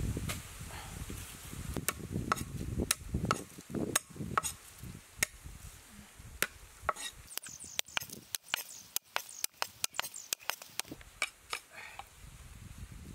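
Cleaver chopping shallots on a round wooden chopping board: a run of sharp, irregular knocks that come faster and closer together in the middle.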